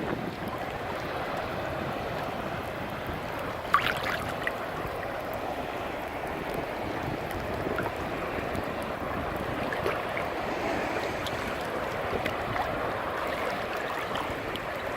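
Ocean surf washing steadily, with wind on the microphone; a brief sharp sound stands out about four seconds in.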